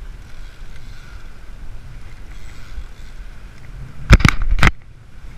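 Wind buffeting the microphone as a steady low rumble, broken about four seconds in by a quick run of four or five loud, sharp knocks within half a second.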